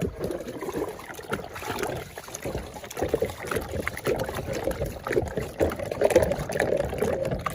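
Water sloshing and splashing irregularly as a toy cement mixer truck is washed by hand in it.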